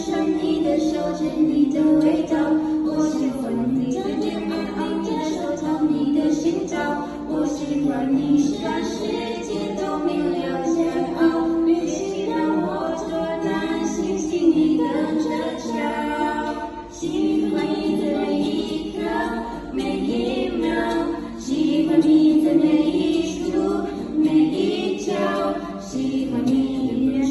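Music with voices singing.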